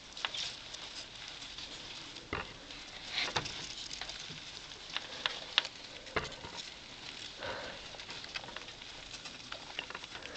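Crumpled paper-towel bedding rustling and crackling as baby rats burrow and move about under it, with scattered sharp clicks at irregular moments, several of them in the middle stretch.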